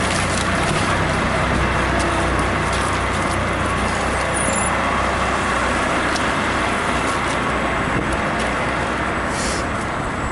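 Steady traffic and road noise, with a low steady rumble and a few faint clicks.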